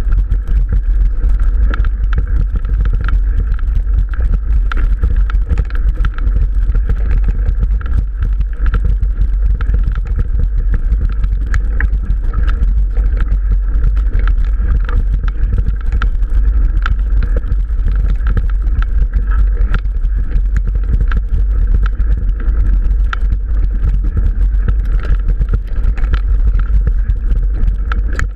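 Mountain bike riding over a rough dirt singletrack: heavy low wind rumble on the action camera's microphone, with continuous rattling and clicking from the bike on the uneven ground.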